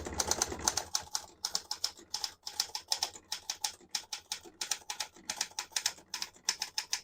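Alpina SK-24 Senior manual typewriter being typed on: a quick, steady run of typebar strikes on the platen, about four or five a second.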